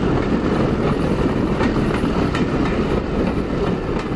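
Railway train running on the track: a steady rumble with wheels clicking over the rail joints.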